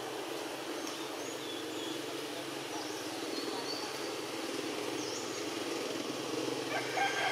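Outdoor ambience: a steady low mechanical hum and rumble, with several short, high bird chirps and a few louder calls near the end.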